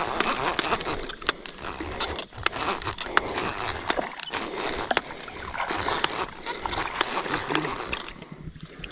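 Baitcasting reel being cranked to reel in a hooked fish: many sharp clicks from the reel over a steady rushing noise.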